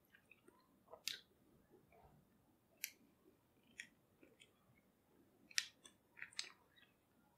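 Faint, scattered clicks and scrapes of a table knife scooping raw marrow out of a canoe-cut beef marrow bone, with a cluster of sharper clicks near the end. Soft chewing at the start.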